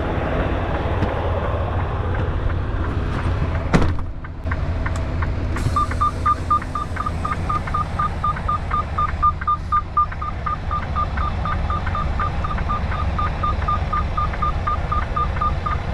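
Semi-truck diesel engine idling, with a cab door slamming shut about four seconds in. From about six seconds in, a steady reverse warning beeper sounds about four times a second as the tractor backs up toward the trailer.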